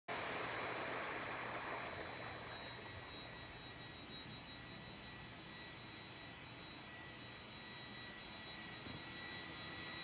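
Roomba robot vacuum running on carpet: a steady high-pitched motor whine over the hiss of its brushes and suction, a little louder in the first two seconds.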